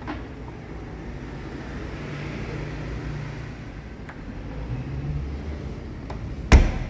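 Camera handling noise and low room tone with a few faint clicks, then one sharp metallic knock about six and a half seconds in as a hand with a key meets the rear hatch of a 1985 VW Kombi near its handle.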